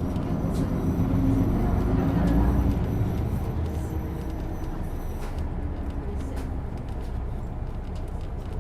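Isuzu Erga bus's inline-six turbo diesel running inside the cabin. It pulls harder and is loudest about two to three seconds in, then eases off and runs steadier.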